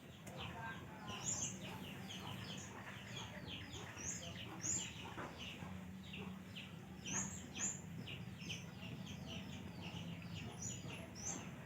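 Small birds chirping busily, several short high chirps a second, over a faint low steady hum.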